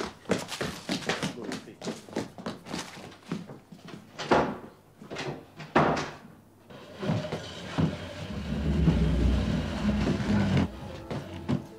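A quick run of footsteps, then two louder bangs about a second and a half apart, like a door, then a wooden chair dragged scraping across the floor for about three seconds.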